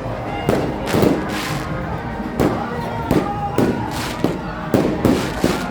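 Fireworks going off in a rapid, irregular series of sharp bangs, roughly two a second, with music underneath.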